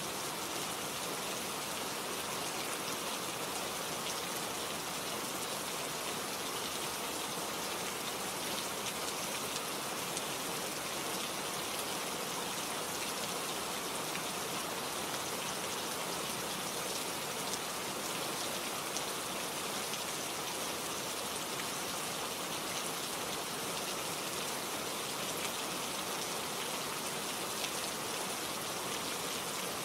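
Steady rain falling, an even continuous hiss with fine patter of drops hitting a surface.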